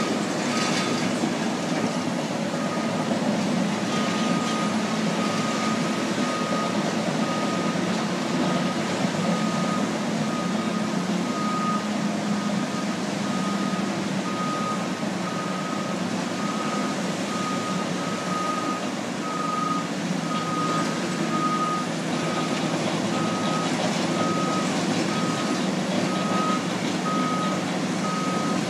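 Heavy diesel bulldozers running steadily while pushing sand, with a backup alarm beeping about once a second throughout.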